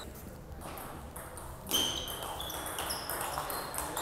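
Table tennis rally: the ball clicking off the paddles and bouncing on the table, each contact with a short high ring. It starts with a sharp click about halfway through and follows with two to three hits a second.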